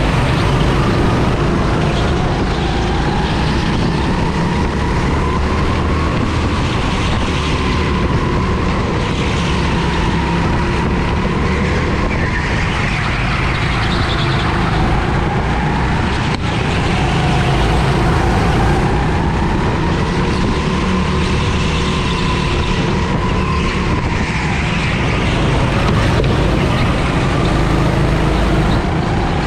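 Go-kart engine heard from on board at racing speed, its pitch rising and falling every few seconds as it accelerates and lifts, over heavy wind and track rumble.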